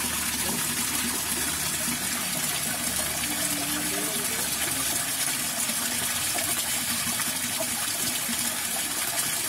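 Water in a small ditch or culvert rushing steadily.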